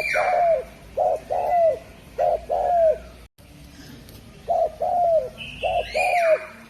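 Spotted dove (derkuku) cooing: two phrases of short, low coos, each note bending down in pitch, with a pause between them. Higher, falling chirps from another bird come in at the start and again near the end.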